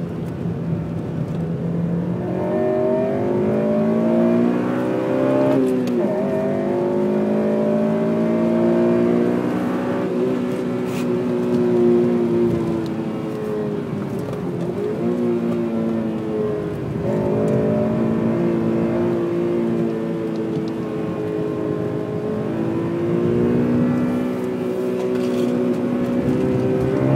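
Honda Civic Type R FN2's 2.0-litre four-cylinder VTEC engine revving under hard acceleration, its pitch climbing and then falling back sharply several times.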